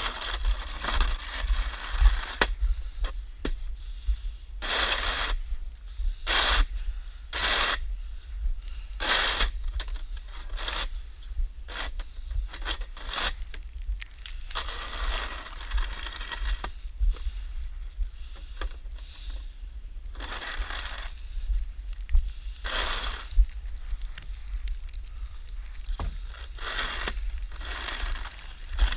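Snow shovel scraping and scooping snow in a series of irregular strokes, one every second or two.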